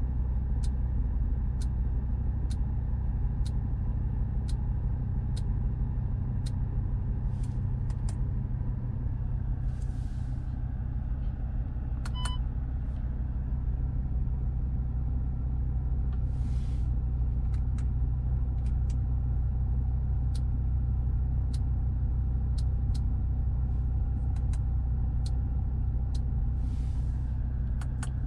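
Audi RS3's five-cylinder engine idling steadily, heard from inside the cabin. A faint tick repeats about every two-thirds of a second, and a short electronic beep sounds about twelve seconds in.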